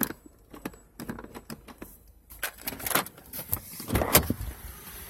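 A string of short clicks and knocks, the loudest a cluster of thumps about four seconds in.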